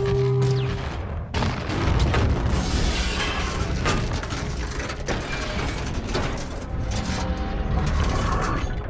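Transformers-film Decepticon sound effect: a dense, continuous run of mechanical clanks, ratcheting clicks and whirring gears, the shifting of a robot's metal parts typical of a transformation. It opens on a brief low hum.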